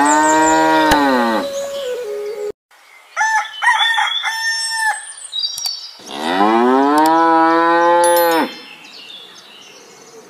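Cow mooing twice, dubbed in as a sound effect: one long moo at the start and another about six seconds in, each rising then falling in pitch. About three seconds in, between the moos, a short patch of brief tones.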